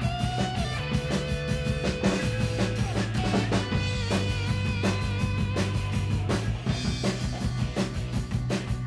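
A drum kit played live, with bass drum, toms and cymbals, along to a recorded rock instrumental whose electric guitar holds sustained notes over a steady driving beat.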